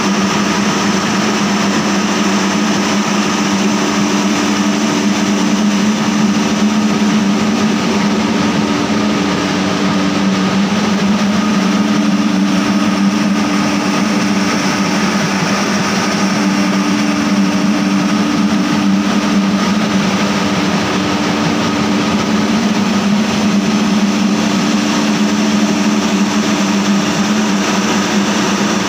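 Sunrise SM-D50 anti-smog gun running, its fan blowing water mist. The sound is a loud, steady hum mixed with a dense rushing of air and spray.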